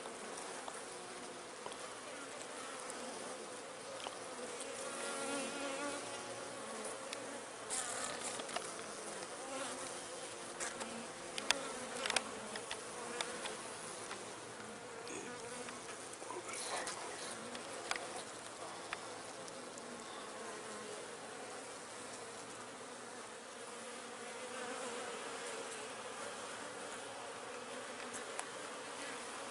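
Steady buzzing hum of a honeybee colony in an open hive, with a few light clicks partway through.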